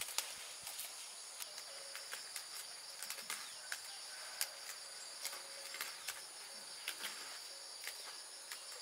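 Insects chirring in a steady high drone, over scattered sharp snaps and rustles of leafy greens being picked by hand.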